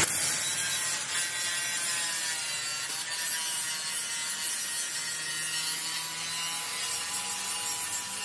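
Handheld angle grinder with a cut-off disc cutting through a steel beam: a steady high motor whine over the continuous grinding of the disc in the metal.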